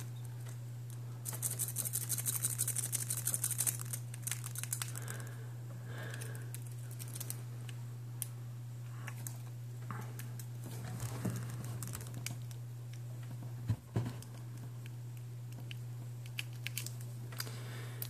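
A lock pick raked rapidly in and out of a pin-tumbler lock, a quick run of fine metallic scratching and rattling for a couple of seconds, then scattered faint clicks and scrapes as the pick works the pins. A single sharp knock comes about two-thirds of the way through, over a steady low hum.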